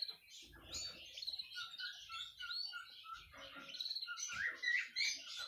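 Canaries chirping faintly: a scatter of short, high chirps and twitters.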